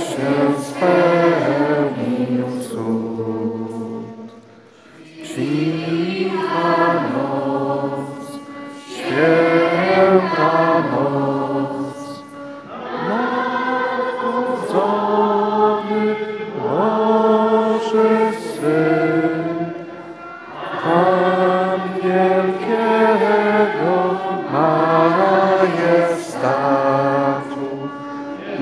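A group of children singing a Christmas carol together, in long phrases of about eight seconds with brief breaths between them.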